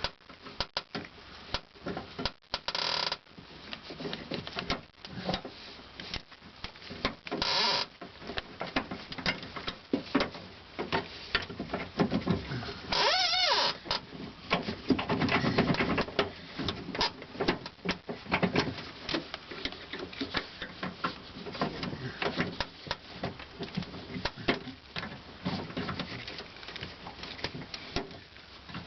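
A small metal hook or pliers clicking and scraping against the lock-mechanism retainer clip and door-handle bracket inside a car door, in irregular bursts while the clip is worked loose, with a few brief squeaks.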